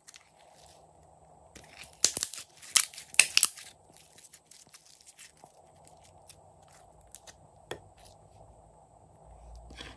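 White slime squeezed and stretched by hand, crackling with a dense run of sharp pops and snaps from about one and a half to three and a half seconds in, then only a few faint clicks.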